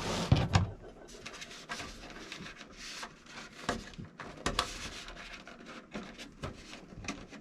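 Light handling noises: scattered small clicks and rubbing as wire body clips are pushed onto the body posts of an RC truck.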